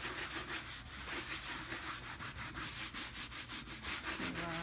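Quick, even back-and-forth rubbing strokes, about six a second, as wet glaze is rubbed off the surface of a painted panel.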